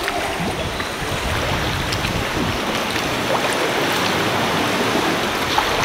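Sea water sloshing and splashing around a sea kayak, a steady rushing wash with a few small ticks.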